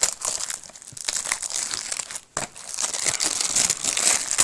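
Plastic shrink-wrap on a Blu-ray case crinkling and tearing as it is worked off by hand. There is a short break a little past halfway, and after it the crinkling is louder.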